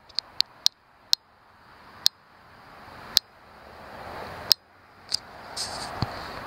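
Sharp clicks at irregular intervals: three in quick succession at the start, then spreading out to about one a second, with a low thump near the end. A faint steady high insect trill runs underneath.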